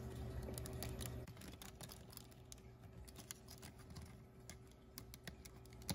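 Faint, scattered clicks and taps of small plastic parts being handled: the head mechanism of a Sega/Hasbro i-Dog robot pup being fitted onto its body.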